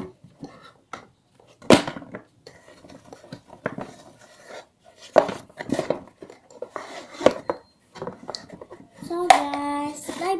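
Knocks, taps and clatter of small objects being handled on a hard surface, loudest at about two, five and seven seconds in. Near the end a child starts a held, sung or hummed note.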